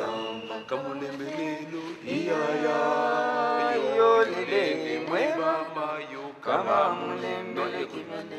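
Voices singing a chant without instruments, with long held notes and sliding pitches, loudest in the middle.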